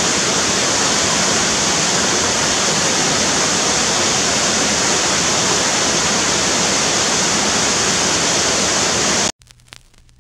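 Steady rushing of flowing water, an even noise that cuts off abruptly about nine seconds in, leaving near silence.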